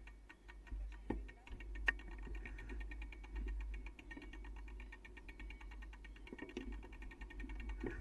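Bicycle ridden along a dirt forest trail: a rapid, fairly even run of ticking and rattling, with sharp knocks about one and two seconds in, over a low rumble of wind on the microphone.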